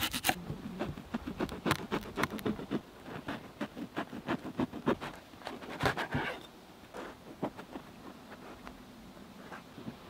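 Knife slicing a red onion on a wooden cutting board: a quick run of sharp taps, several a second, for about six seconds, then a few scattered clicks.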